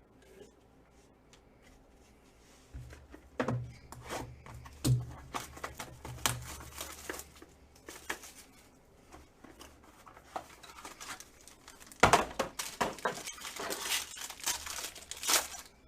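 Trading card packaging being torn open and crinkled by hand: scattered tearing, crackling and rustling, busiest near the end.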